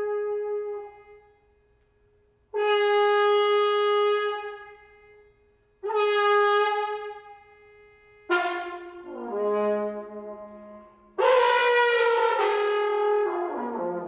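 Bass trumpet playing the same sustained note three times, each held a second or two and fading away. Then a falling slide of notes follows, and near the end a loud, rough, layered tone that bends downward in pitch.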